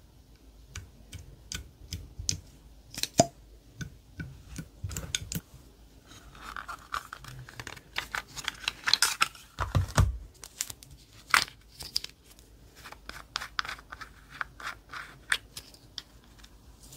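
Hands working slime and small craft items, making a run of irregular sticky clicks, crackles and crinkles, with a deeper thud a little under ten seconds in.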